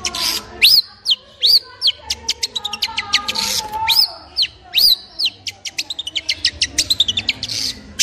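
Long-tailed shrike singing a varied song: fast runs of sharp clicking notes, arched whistled notes that rise and fall, and short scratchy notes in between.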